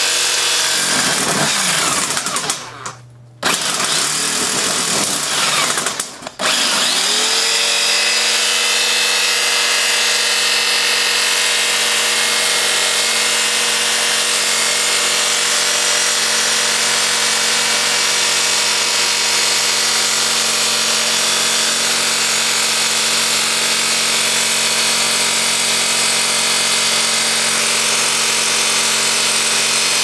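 Corded Skil jigsaw cutting sheet steel along a traced line. It stops briefly twice in the first seven seconds and comes back up to speed each time, then runs steadily.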